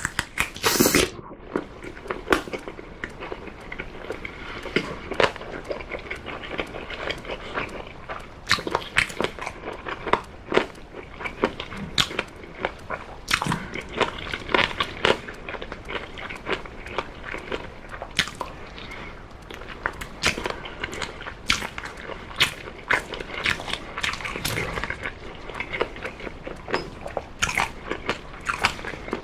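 Close-miked chewing and biting of oven-baked chicken drumsticks, with many irregular wet smacks and clicks as meat is pulled off the bone. The loudest smack comes about a second in.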